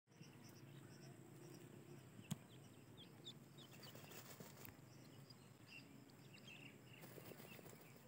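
Grey francolins dust-bathing in loose soil: faint scratching and wing-flicking rustles in the dirt, with many short high chirps throughout. A sharp click about two seconds in is the loudest sound.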